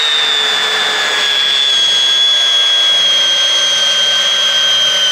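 Milwaukee M12 Fuel Gen 2 cordless hammer drill in drill mode, driving a 6-inch TimberLOK screw into wood. Its motor whine holds steady and falls slowly in pitch as the long screw goes in.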